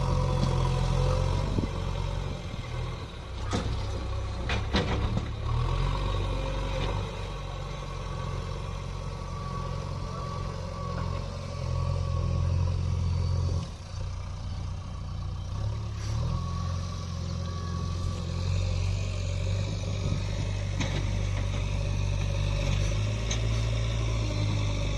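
Heavy diesel engine running steadily, its pitch stepping up and down a little as the load changes, with a few sharp knocks about three to five seconds in.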